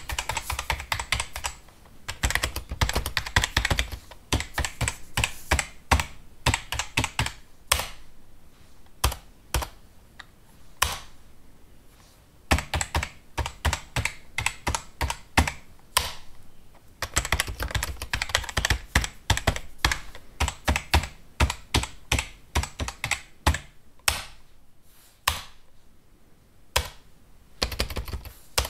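Computer keyboard typed on fast: rapid key clicks in dense runs, broken by short pauses and a few single keystrokes.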